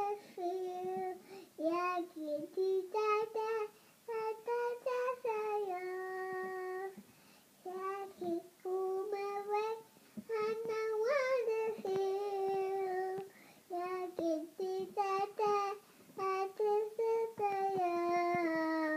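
A young child singing a song alone, without accompaniment, in short held phrases broken by brief pauses.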